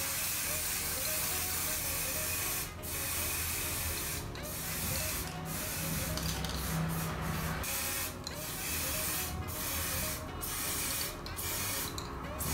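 Aerosol can of pink hair-colour spray hissing onto hair in repeated sprays of about a second each, separated by brief breaks.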